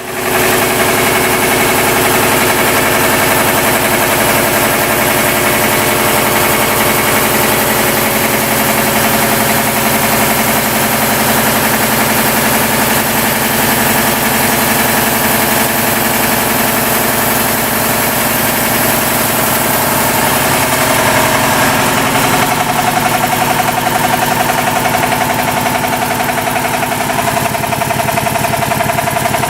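American Kellogg 462 piston air compressor (25 hp) running steadily with a rhythmic knock from worn connecting rod bearings, three of its four rod bearings being worn. The pitch of its running shifts a little about two-thirds of the way through.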